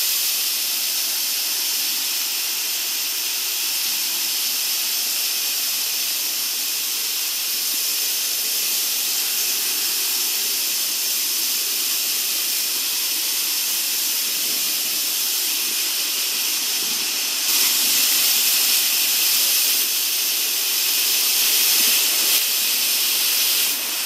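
Waterfall: the steady rush and hiss of falling water, heard from close to the fall. It gets louder for about six seconds starting about two-thirds of the way through.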